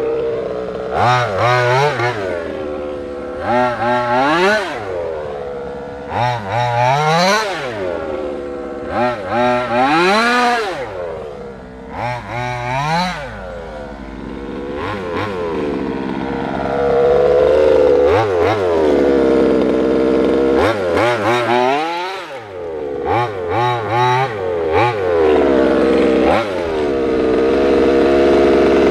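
Small gas two-stroke engine of a 1/5-scale HPI Baja 5SC RC truck, a big-bore engine breathing through a silenced side-pipe exhaust, revving up and dropping back over and over as the truck drives. It holds a longer steady run in the middle and again near the end, as the truck comes in close.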